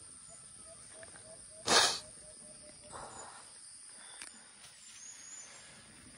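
Steady high-pitched insect chorus of the early morning outdoors, with one short loud hiss about two seconds in.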